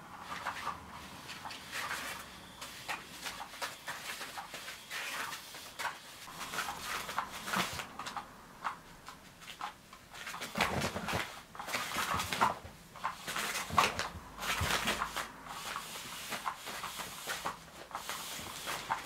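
Nylon cover of a Cat's Meow motorised cat toy rustling and crinkling in irregular bursts as a cat paws and pounces at the wand moving beneath it, busiest from about ten to sixteen seconds in.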